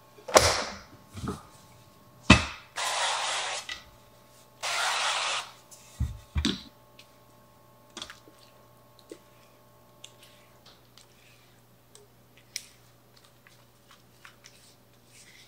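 Kitchen handling sounds: a few sharp knocks, two hissing bursts of about a second each, and a couple of heavier knocks. After these, a spatula scrapes thick cake batter from a glass mixing bowl into a metal loaf pan, with faint soft clicks and taps.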